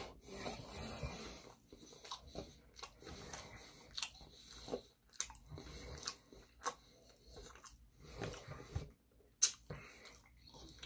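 A man chewing a mouthful of sushi roll, with irregular small clicks and soft wet mouth sounds.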